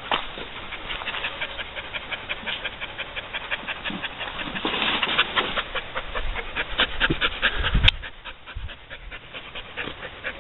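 A dog panting fast and evenly, about five breaths a second, fading in the last couple of seconds. A single sharp click about eight seconds in.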